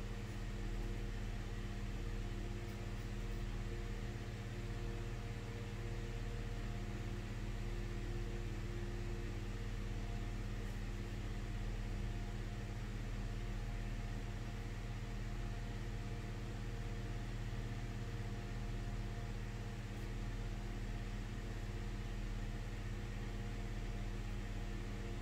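Steady low hum under a constant hiss, with no strokes or clicks standing out.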